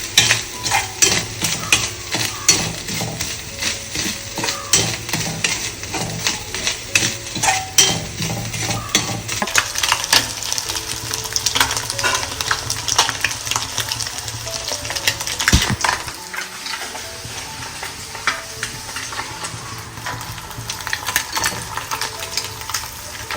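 A metal spoon stirring and scraping in a pan of food sizzling on a gas stove, with quick clicks of the spoon against the pan, about two a second at first and sparser later.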